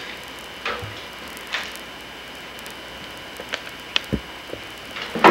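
Eggs and small objects handled on a wooden tabletop: scattered light clicks and knocks, a low thump about four seconds in and a louder clatter at the end, over a steady camcorder tape hiss with a faint hum.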